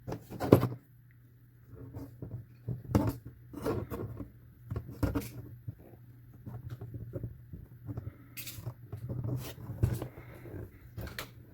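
Scissors cutting 20-gauge copper sheet: an irregular series of snips and clicks as the blades work through the thick metal, over a steady low hum.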